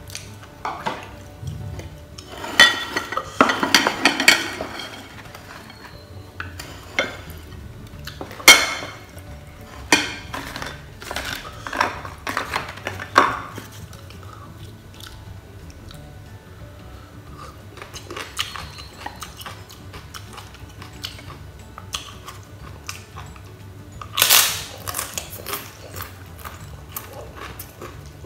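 Chopsticks and crockery clinking and knocking against each other at a table. The knocks are scattered and irregular, with a denser crackly clatter a few seconds in and a louder rustling crackle near the end.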